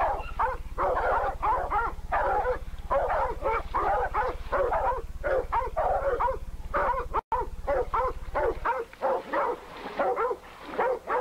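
Hog dogs barking rapidly and without let-up, several barks a second, at a hog that stands at bay and faces them down.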